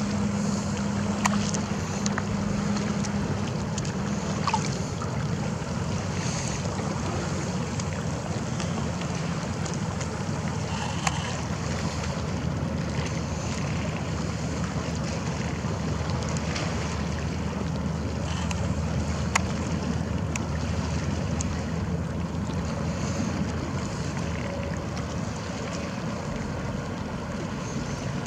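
Small waves lapping and splashing at the lake's edge right beside a microphone a few inches above the water, with many small crackling splashes and a few sharper ticks. A steady low hum sits underneath for the first few seconds.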